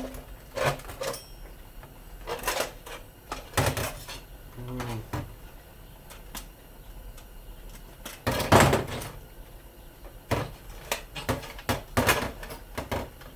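Irregular metal clicks and knocks as a screwdriver works at a stuck screw in a tin appliance housing, with a louder clatter about eight seconds in.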